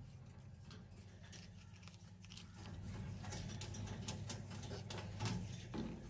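Alexandrine parakeet biting and chewing its food: a scattered run of small sharp clicks and crunches from its beak, over a faint low hum.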